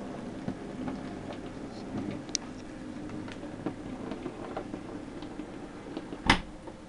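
Hornby K1 model steam locomotive running along model railway track: a steady motor hum under irregular small clicks of its wheels on the rails, with one sharp, louder click near the end.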